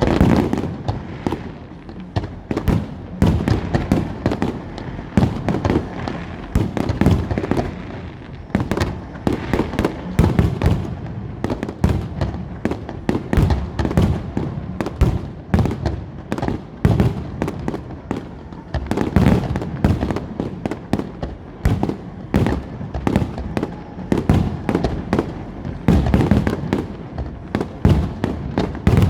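Firework display: a rapid, continuous barrage of bangs and crackles, several a second, with low booming echoes.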